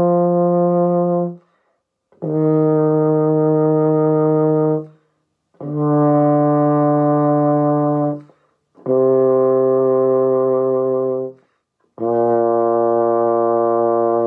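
Euphonium playing a descending concert B-flat scale from F down to low B-flat: five long held notes, each about two and a half seconds, stepping down in pitch with a short breath gap between them.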